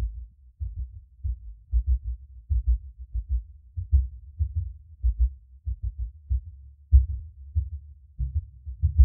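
Electronic music: deep, muffled bass pulses in a loose, heartbeat-like rhythm, with almost nothing above the low end.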